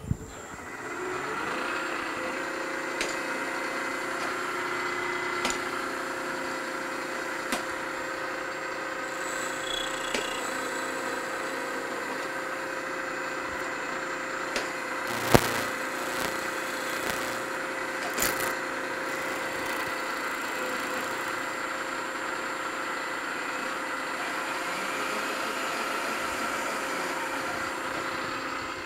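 Milling machine spindle spinning up with a rising whine, then running steadily with an end mill in the chuck. A few sharp clicks or knocks sound over the hum, the loudest about halfway through.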